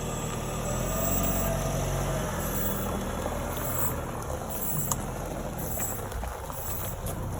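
A 2006 Honda CR-V creeping forward in drive, a steady low drone from the vehicle. A faint whine rises and falls during the first few seconds: the odd high-pitched noise from the right rear, which the owner thinks may be related to the brake lines.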